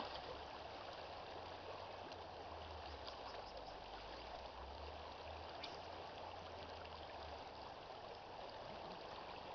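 Shallow river running over a cobble bed: a steady, fairly faint rush of flowing water.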